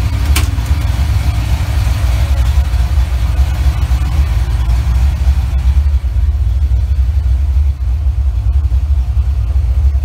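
Small-block Ford 302 (5.0 L) V8 of an '88 Mustang GT, on Holley Terminator X fuel injection, idling with a steady deep rumble. A single sharp click comes about half a second in.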